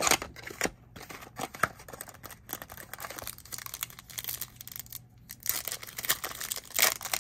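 Baseball card pack wrappers crinkling and tearing as packs are ripped open by hand. There are irregular sharp rustles and rips throughout, loudest at the very start and again near the end.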